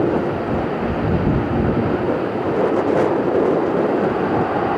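Aircraft engines running with a loud, steady, rumbling roar at an airport.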